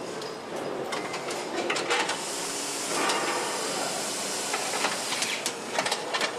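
Car assembly-line factory noise: a steady hiss that swells from about two seconds in to about five, with scattered clicks and metallic knocks from tools and parts throughout.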